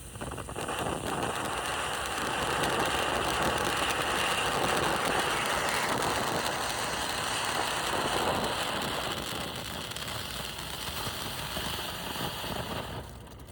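Cone ground fountain firework (Kaboom Emerald Fountain) spraying sparks with a loud, steady hiss. It builds up over the first couple of seconds, runs for about twelve seconds and dies out near the end.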